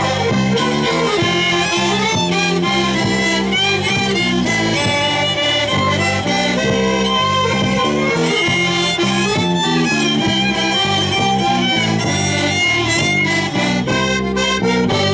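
Instrumental passage by a Polish backyard band (kapela podwórkowa) playing live: fiddle and two accordions over bass guitar, with a bass drum and mounted cymbal keeping a steady beat.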